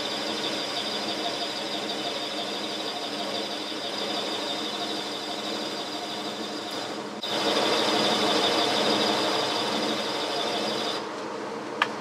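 Boxford lathe running with a parting-off tool cutting a groove in a spinning round bar: a steady machine hum under a high-pitched whine from the cut. The cutting gets louder about seven seconds in, and the high whine stops shortly before the end.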